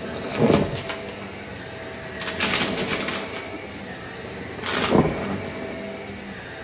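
Shark upright vacuum cleaner running with a steady motor hum, its floor head picking up small hard debris that rattles and clatters up the nozzle in three loud bursts: about half a second in, around two and a half seconds, and near five seconds.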